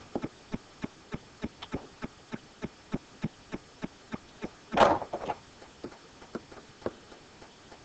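Light, evenly spaced clicking, about three clicks a second, with one louder brief noise a little under five seconds in.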